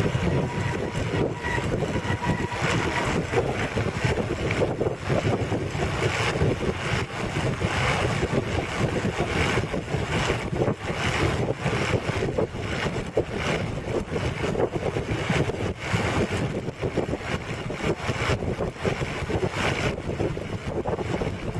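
Wind buffeting the camera's microphone over the road and engine noise of a moving vehicle, a steady gusty rush with a heavy low rumble. A faint high whine runs underneath for the first couple of seconds.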